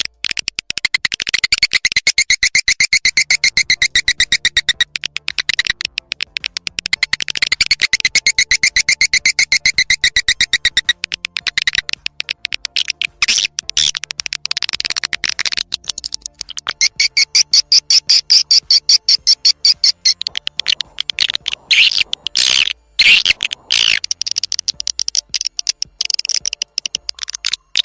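Swiftlet call lure sound: edible-nest swiftlet twittering, a fast, dense chatter of sharp high chirps in long runs with brief breaks. Two stretches settle into a steadier trill, and a higher-pitched run follows later.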